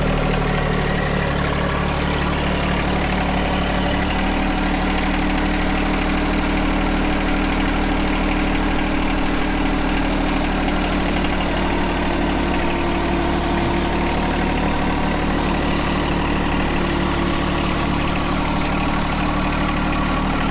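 John Deere 1025R compact tractor's three-cylinder diesel engine running steadily, its tone shifting slightly about four seconds in.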